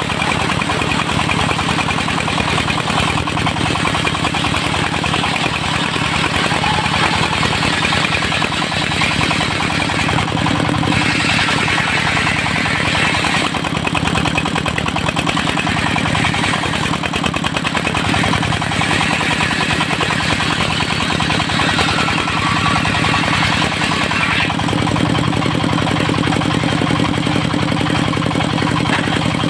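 Engine-driven circular sawmill running steadily, with a higher hiss rising over the engine's hum twice, about eleven seconds in and again from about nineteen to twenty-four seconds, as the blade cuts through teak.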